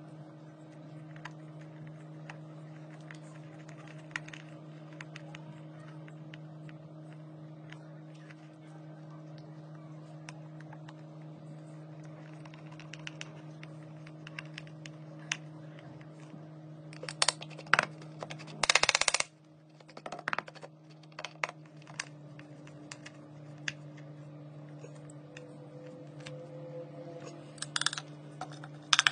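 Hand screwdriver turning the screws of a small steel door hinge: scattered light metallic clicks and scrapes of the tip in the screw heads, with a busier run of clicks about two-thirds of the way through and again near the end, over a steady low hum.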